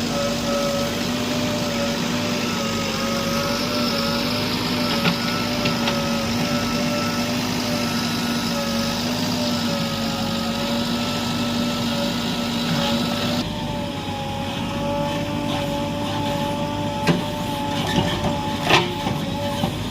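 JCB 3DX backhoe loader's diesel engine running steadily under work, with several held tones. The sound changes abruptly about two-thirds of the way in, and a few sharp knocks come near the end.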